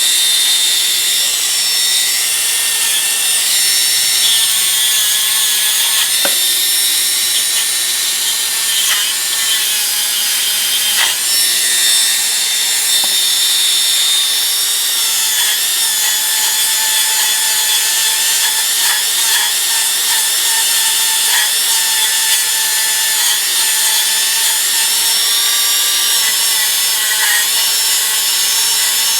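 Small power tool spinning an abrasive cleaning wheel against steel pliers, scrubbing off rust and old paint: a steady high motor whine with a scraping hiss and the odd brief scrape as the pliers shift against the wheel.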